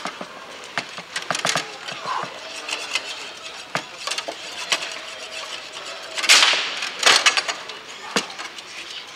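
Foosball play on a Bonzini table: sharp clacks of the ball striking the players and the table walls, and the rods knocking. A louder hit comes about six seconds in.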